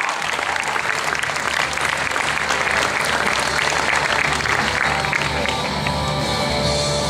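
Large audience applauding, swelling in the middle and thinning toward the end, with music playing over the hall's speakers underneath.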